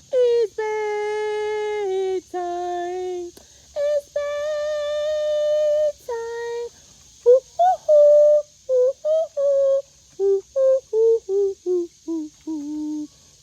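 A woman singing wordless, drawn-out notes to coax hens to roost, then a quicker run of short sung notes from about seven seconds in.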